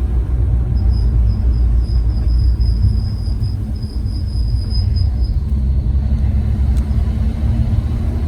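Unidentified chirping noise from a 2021 Mercedes E53: a string of short, high-pitched chirps repeating several times a second over a steady low vehicle rumble, running together for a few seconds and then stopping about five seconds in.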